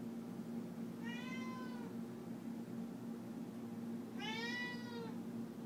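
Domestic cat meowing twice, each meow a little under a second long and rising then falling in pitch, about three seconds apart: a cat begging for chicken.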